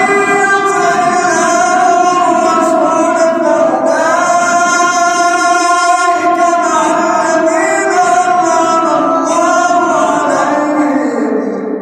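Quran reciter's voice in melodic, drawn-out mujawwad-style recitation: one long ornamented phrase held in a single breath, the pitch gliding and wavering, stepping down near the end before it breaks off.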